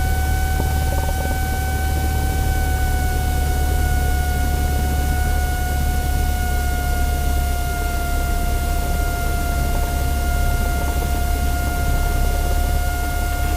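Light airplane's piston engine running steadily at low power, heard inside the cabin as a constant low rumble with a steady high whine on top.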